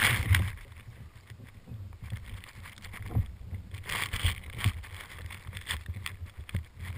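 Wind buffeting the microphone of an action camera lying in the grass: an uneven low rumble that swells and fades, with light ticks of grass blades brushing the housing. It opens with a louder bump as the camera is set down.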